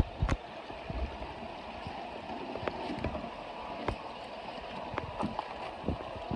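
Creek water rushing and gurgling steadily, with scattered short knocks and splashes, two sharp ones near the start.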